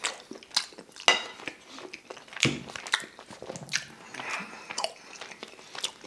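Close-up chewing of a mouthful of chicken and rice: irregular wet mouth clicks and crunches. There is a brief ringing clink about a second in, from the fork against the ceramic bowl.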